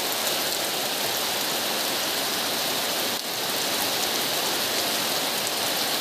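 Heavy rain falling steadily on a corrugated metal roof and the trees beyond it, an even rushing hiss with a brief slight dip about three seconds in.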